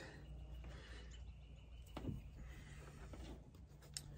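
Quiet outdoor background with a faint steady hum and a soft click about two seconds in.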